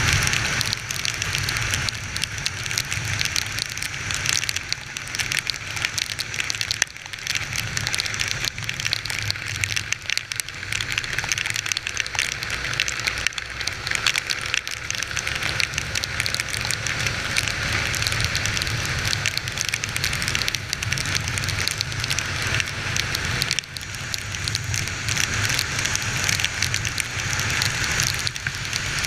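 Heavy rain crackling and pattering on the microphone, with a steady low rumble underneath.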